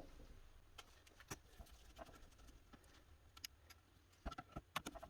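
Faint, scattered clicks and light taps of small screws and metal parts being handled while a VCR tape transport is taken out, with a quick cluster of clicks near the end.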